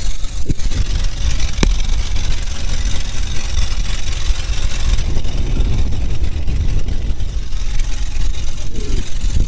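Motorboat engine running steadily, a dense low rumble, with two short clicks in the first two seconds.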